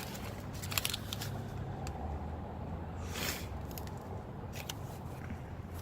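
Faint handling sounds of a small multitool: a few light clicks and a short rustle over a steady low background hum.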